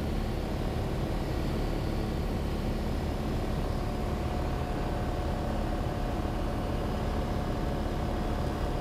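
Cessna 182's piston engine and propeller running steadily in flight, heard from inside the cabin as an even drone that does not change.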